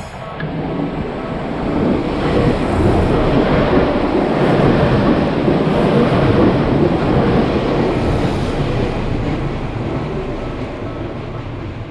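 A train passing close by: a rumbling, rushing noise of wheels on rails that swells over the first few seconds, is loudest in the middle and slowly fades.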